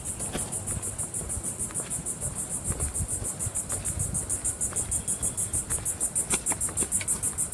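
Insects chirping in an even, rapid high-pitched pulse, several chirps a second, without a break.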